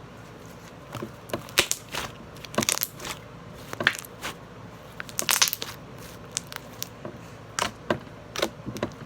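Slime being kneaded and squished by hand as clay is worked in, giving irregular sharp crackles and pops that start about a second in.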